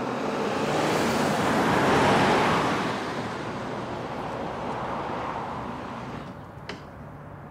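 A car driving past, its engine and tyre noise swelling to a peak about two seconds in and then slowly fading away.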